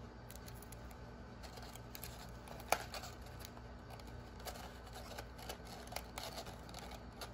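Paper and tape being handled and pressed: faint rustling and light clicks as a paper cup is turned and wrapped by hand, with one sharper click nearly three seconds in.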